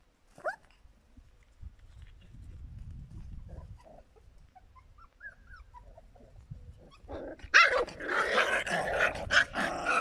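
Australian kelpie puppies play-fighting: a short yelp about half a second in and a few small whines, then loud puppy growling and yapping in the last few seconds.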